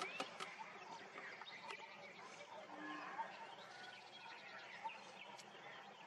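Faint background of birds chirping and calling in short scattered notes, with a few sharp ticks.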